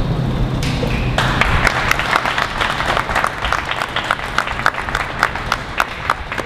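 A crowd applauding, the clapping starting about a second in and continuing as many quick overlapping claps.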